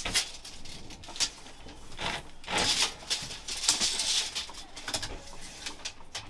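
Clicks and knocks of wood and tools being handled on a workbench, with a stretch of scraping or rustling in the middle.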